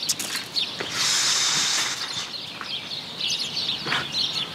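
Small birds chirping and twittering in the background, with a loud harsh hiss lasting about a second, about a second in.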